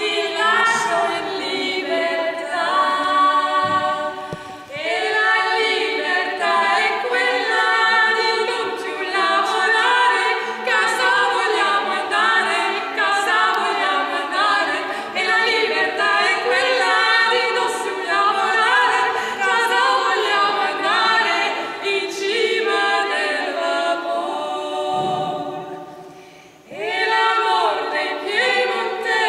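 Three women singing together a cappella, several voices at once without accompaniment. The singing dips briefly a little after four seconds and nearly stops for a moment near the end before picking up again.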